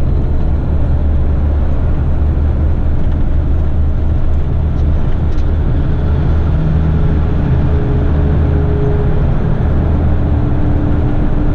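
Steady low drone of a heavy rigid truck's engine and tyres at freeway speed, heard inside the cab. A few humming tones join the drone from about halfway through.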